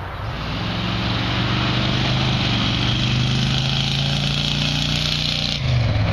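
1993 Ford F-250's 460 big-block V8 running through homemade single-chamber mufflers as the truck drives past, giving a deep exhaust note. The pitch climbs at first, then holds steady while the sound grows louder, and it shifts abruptly near the end.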